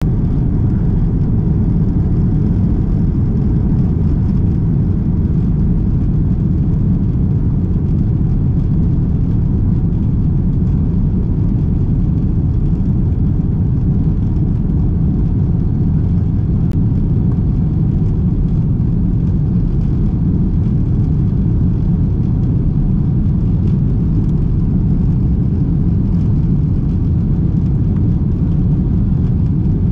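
Airliner cabin noise while climbing after take-off: engines and rushing air heard from inside, a steady, loud low rumble.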